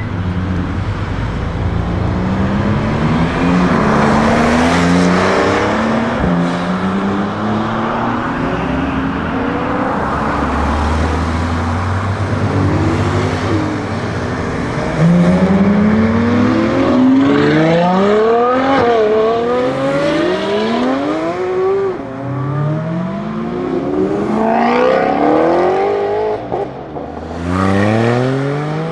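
Lamborghini Huracán STO's naturally aspirated V10 accelerating hard on a race track, its pitch climbing and then dropping back at each quick upshift, over and over. The pulls come fastest and loudest in the second half, with tyre and wind noise as the car passes.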